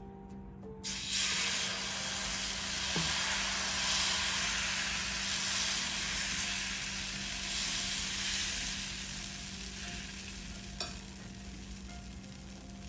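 Tomato dosa batter sizzling on a hot iron dosa pan as it is poured and spread in a spiral with a ladle. The sizzle starts suddenly about a second in and slowly dies down as the dosa sets.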